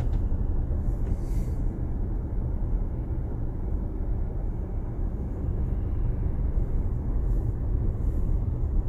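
Steady low road rumble inside a car's cabin as it rolls slowly along a gravel road, tyres and engine blending into one even noise.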